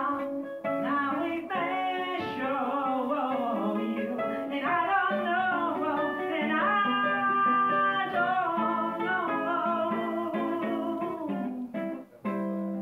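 Ukulele played live, accompanying a man singing; he holds one long note about halfway through, and the music dips briefly near the end.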